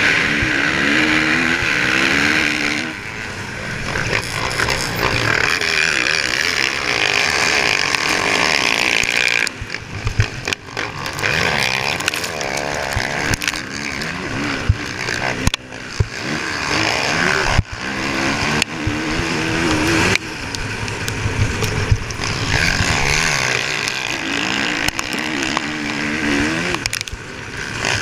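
Motocross dirt bike engine at racing throttle, heard up close from on the bike, revving up and down as it runs down the start straight and into the first turns. Wind rush and a few sharp knocks from the rough track run through it.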